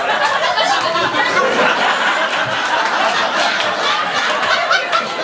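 Audience laughing, mixed with overlapping voices and shouts.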